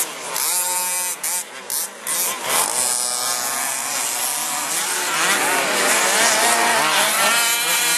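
Several radio-controlled off-road race trucks running flat out round a dirt track, their motors buzzing and revving, the pitch repeatedly rising and falling as they throttle up and off through the turns and jumps.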